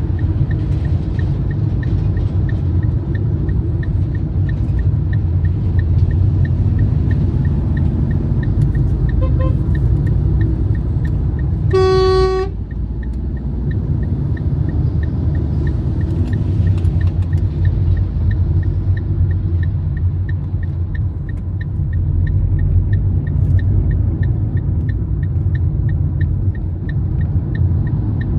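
Steady road and engine rumble of a car driving on a highway. About twelve seconds in, a car horn honks once, briefly, preceded a few seconds earlier by a fainter short beep.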